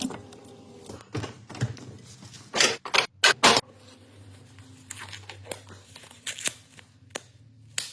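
Scattered scraping, rustling and clicking handling noises, with a cluster of short, louder scrapes about two and a half to three and a half seconds in, over a faint low hum.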